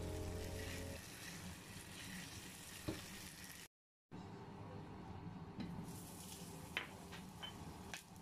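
Background music that stops about a second in, then minced meat and mushrooms sizzling in a frying pan as a spatula stirs them, with one click. After a brief cut-out, a few light clinks as butter is tipped from a plate into a stainless steel saucepan.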